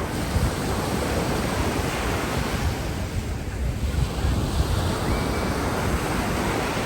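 Steady rushing noise of wind buffeting the microphone, with ocean surf.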